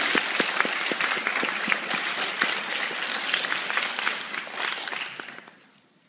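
Audience applause, many hands clapping, dying away about five seconds in.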